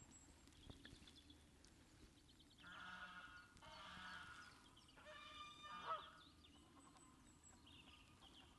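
Geese honking faintly, three calls between about three and six seconds in, the last the loudest.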